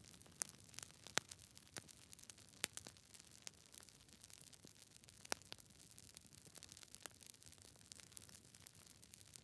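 Campfire crackling: a faint hiss with irregular sharp pops and snaps, a few louder pops standing out.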